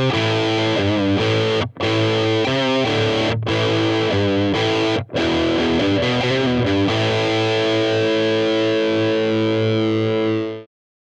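Distorted electric guitar played through a Revoltage RV-15T tube combo amplifier: a riff with a few brief breaks, then a held chord from about seven seconds in that cuts off suddenly near the end.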